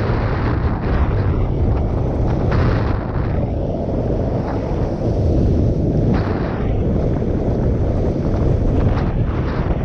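Wind buffeting an action camera's microphone on a fast ski run downhill, a heavy steady rumble, with the hiss of skis scraping over packed snow swelling and fading every second or two.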